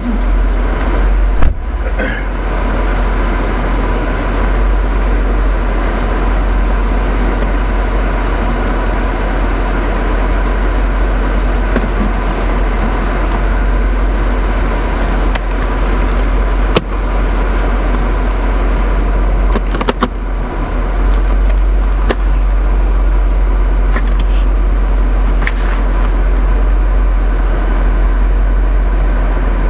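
Dodge Charger's V8 idling steadily, heard from inside the cabin while the car stands still. A sharp knock about a second and a half in, and a few short clicks later.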